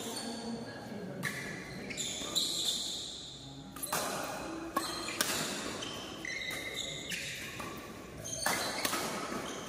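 Badminton rally: rackets smacking the shuttlecock at uneven intervals, with shoes squeaking on the court in short high chirps between the hits.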